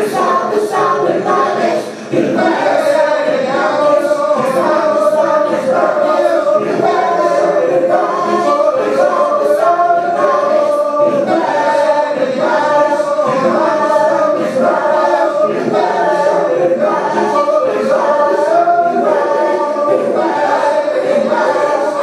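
Many voices singing together like a choir, with no instruments, held at a steady loud level apart from a brief drop about two seconds in.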